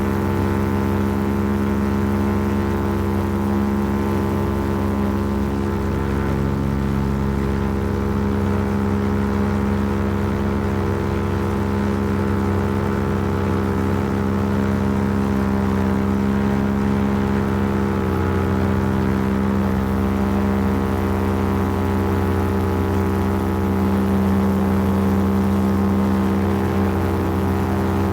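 Paramotor engine and propeller running steadily at a constant throttle, with a slight step in pitch about eighteen seconds in.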